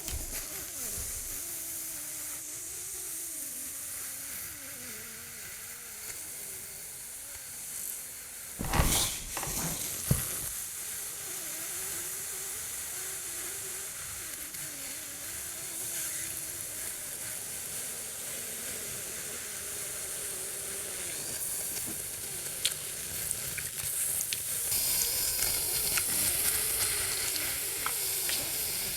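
Steady hissing, sizzle-like noise, broken by two loud sharp knocks about nine and ten seconds in.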